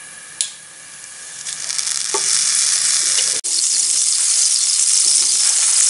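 Margarine melting and frying in a hot pan, starting quietly and building over about a second into a loud, steady sizzle. A single clink comes just before the sizzle rises.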